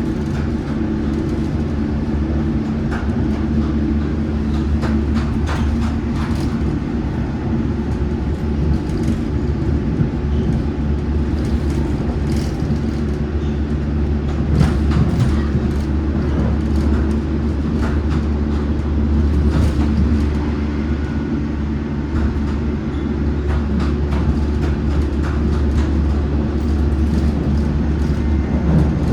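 London Underground Metropolitan line S8 Stock train running along the track: a steady drone of traction motors and wheels on rail, with short sharp clicks now and then.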